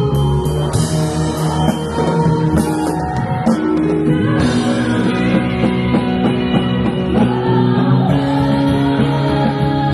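Live rock band playing a song: drum kit, guitar and a singing voice.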